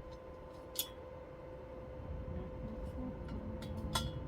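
Steady faint hum with two light metallic clicks, one about a second in and one near the end, as welded metal pieces are handled.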